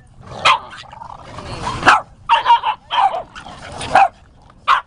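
Boston terriers barking and yipping in rough play, a string of short sharp barks with a longer harsh, noisy stretch about a second and a half in.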